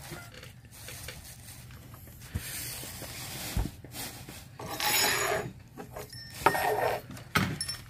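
Newspaper wrapping rustling and crinkling, with light knocks and rubbing as objects are handled on a table. The crinkling is loudest about five seconds in.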